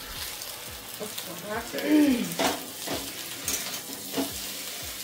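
Vegetables sizzling as they fry in oil in pans, with a spatula stirring and scraping in short clicks. A brief voice sound comes about two seconds in.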